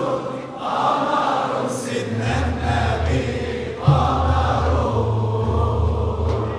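Male inshad ensemble singing an Arabic devotional chant in unison, with a low sustained drone joining after about two seconds. A single stroke on a large frame drum sounds about four seconds in.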